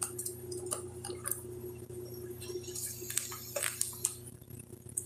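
Kitchen handling noise: scattered small clicks and clinks over a steady low hum, with a short stretch of hiss and several sharp clicks just past the middle.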